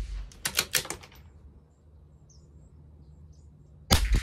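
CZ 457 .22 LR bolt-action rifle: a quick run of metallic clicks about half a second in as the bolt is worked, then a shot near the end. That round went supersonic, where the one before it sounded subsonic, a sign of inconsistent velocity in the Geco .22 LR ammunition.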